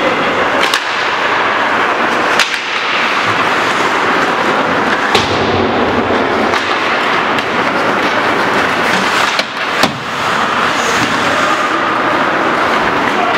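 Ice hockey play heard in an echoing indoor rink: a steady scrape and rush of skates on the ice, with a few sharp clacks of sticks striking the puck, the loudest about two and a half seconds in and near ten seconds in.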